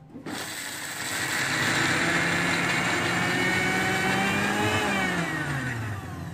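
Panasonic MX-AC400 mixer grinder's motor starting up and running at high speed, its stainless steel jar chopping sliced lemongrass. About five seconds in it is switched off and the whine falls as the motor spins down.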